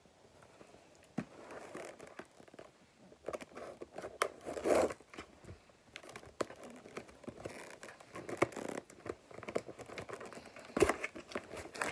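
A cardboard product box being handled and worked open by hand: irregular scraping, scratching and crinkling of the cardboard with scattered sharp taps, louder scrapes about halfway through and near the end.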